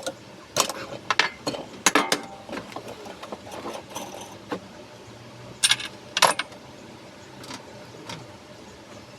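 Metal tools and small metal parts clinking and clicking: an irregular run of sharp clacks, thickest in the first two seconds and again about six seconds in.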